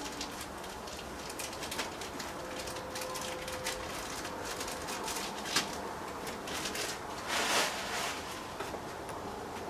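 Clear plastic parts bags crinkling and rustling as they are handled and opened, with a longer rustle about seven and a half seconds in. A dove coos faintly in the background.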